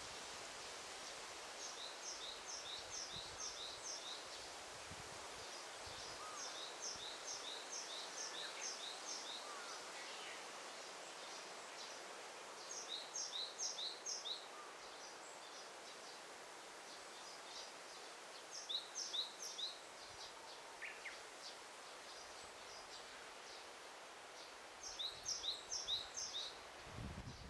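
Forest ambience: a songbird repeats a short phrase of rapid high notes five times, about every six seconds, over a steady background hiss.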